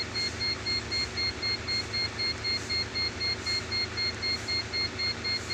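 Diesel truck engine idling, heard from inside its cab, a steady low hum with an even pulse about twice a second. A rapid, high-pitched beeping runs alongside it.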